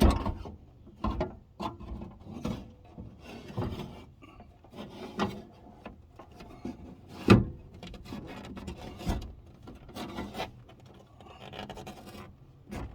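Rubbing, scraping and irregular knocks from hand work inside a car door panel as the rear door window and its sweep are worked at, with one sharper knock about seven seconds in.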